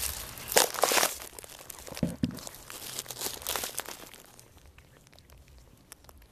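Rustling and crinkling handling noises close to the microphone as bedding is moved about in the box, loudest in the first second or so, then fading to a few faint clicks after about four seconds.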